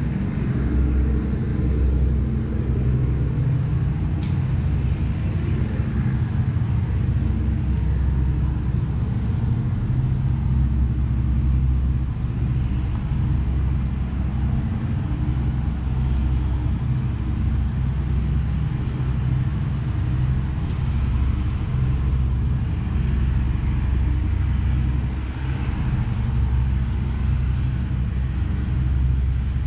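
Steady low engine rumble, as from nearby motor traffic, with a single sharp click about four seconds in.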